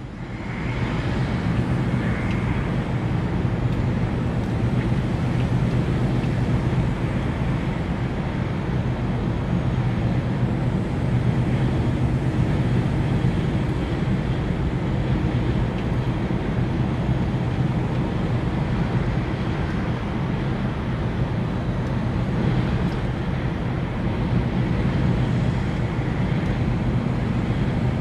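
Steady drone inside a lorry's cab at motorway speed: the diesel engine and tyres on a wet road.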